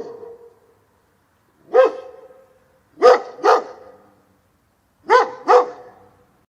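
Dog barking: a single bark, then two quick pairs of barks, each followed by a short fading echo.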